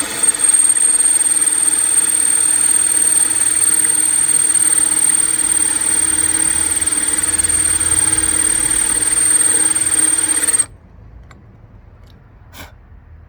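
Power drill running steadily with a high whine as its bit bores into a planter, stopping suddenly after about ten seconds. The bit is making little headway through the pot.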